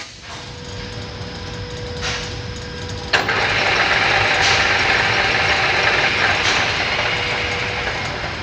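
Metal lathe running with a steady machine hum; about three seconds in, a much louder, even machine noise starts suddenly and holds, easing slightly near the end.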